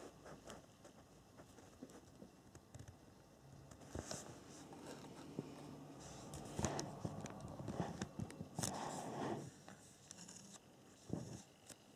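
Faint handling noise: scattered light clicks and rustles from hands moving the battery leads and the camera, with a denser rustle about nine seconds in and a sharp click near the end.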